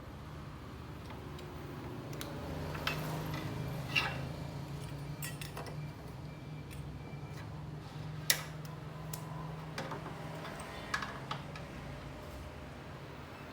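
Scattered clicks and light metallic taps, about eight or nine spread irregularly, from small tools and parts being handled during microwave oven repair, over a steady low hum.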